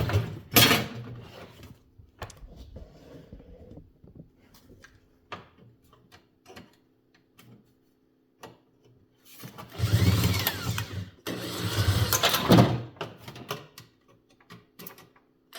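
Metal clicks and knocks as rivets and blade parts are handled. Then, in the second half, a power drill drilling out the rivets that hold a box-fan blade to its hub, in two runs of a few seconds each.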